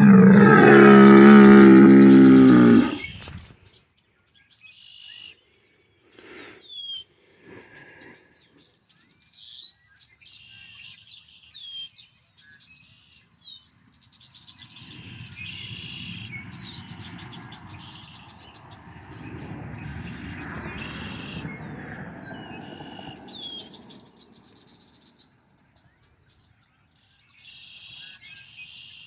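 A bull bellows loudly for about three seconds, then songbirds chirp and sing on and off. Midway a car passes by, its road noise swelling and fading over about ten seconds.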